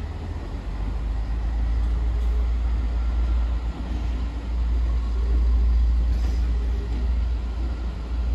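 Train approaching slowly along the track: a steady low rumble that grows a little louder about five seconds in.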